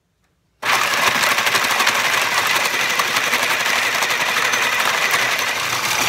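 Food processor grinding hard dried bread into breadcrumbs. It switches on about half a second in and runs loud and steady, with a dense rattle of bread pieces against the plastic bowl.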